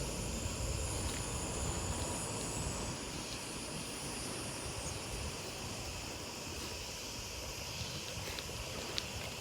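Steady wind noise on the microphone while riding a bicycle, a low rumbling rush with no clear pattern.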